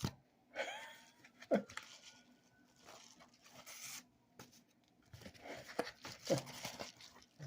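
A paper mailing envelope being torn open and its contents handled, with intermittent rustling and a few short crinkles.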